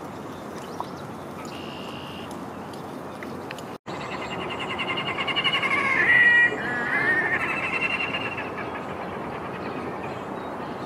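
A red-necked grebe calling: a loud, pulsing, wavering wail that starts about four seconds in and swells to a peak. It then runs on in a second wavering phrase before fading.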